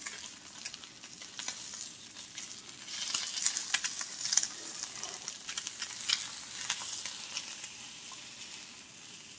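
An egg frying in oil in a Jetboil Summit nonstick pan, a steady sizzle with crackling pops. A spatula scrapes and taps against the pan as it is worked under the egg, loudest from about three to four and a half seconds in.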